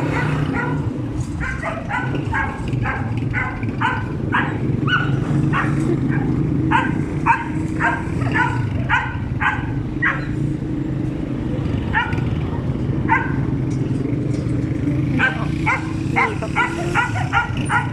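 A small dog barking in runs of short high yaps, about two or three a second, with pauses between the runs. A steady low hum runs underneath.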